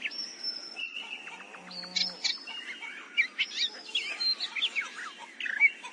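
Songbirds chirping and whistling in quick overlapping calls over a soft steady hiss of a brook, with a brief drop-out a little under a second in.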